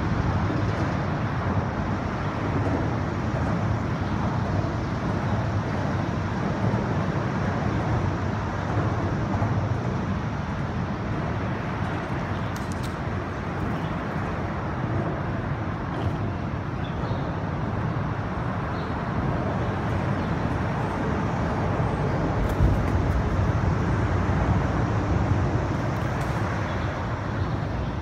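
Steady traffic noise from the elevated I-95 highway overhead, an unbroken wash of passing vehicles with no single one standing out.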